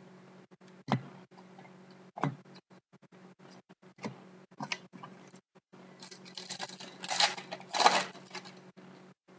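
Trading card packs and cards being handled: a few sharp clicks and taps, then a stretch of rustling and scraping toward the end, with two louder bursts, as a pack is opened and the cards are gone through.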